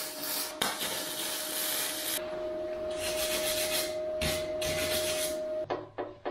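Flux-core wire welder arc crackling and hissing as steel square tubing is tack welded, with a short break about half a second in; the arc stops after about two seconds. Then a few short scrubbing strokes on the weld over a steady hum, and music comes in near the end.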